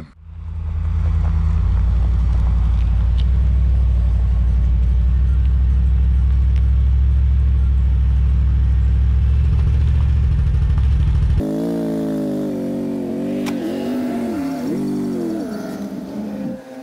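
Car engine sound: a loud, steady low rumble. About eleven seconds in it changes abruptly to the engine revving, its pitch rising and falling several times.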